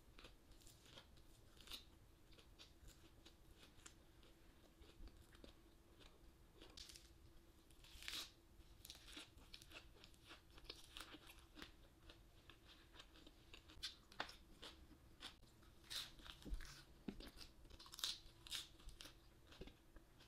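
Faint close-up chewing of a mouthful of crisp lettuce wrap: soft crunches and wet mouth clicks coming irregularly, more of them in the second half, over a faint steady hum.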